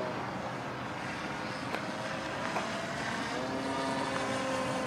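Motor and propeller of a radio-controlled aerobatic model airplane flying overhead, a steady buzzing hum whose tone shifts about three seconds in.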